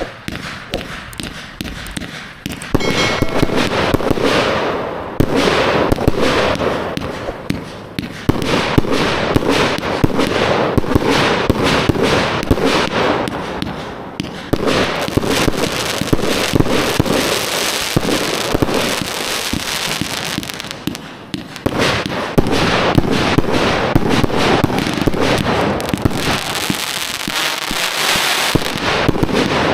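A four-cake compound consumer firework cake firing: a continuous, rapid barrage of shots and breaks. It comes in waves, building up from about three seconds in and easing briefly several times before picking up again.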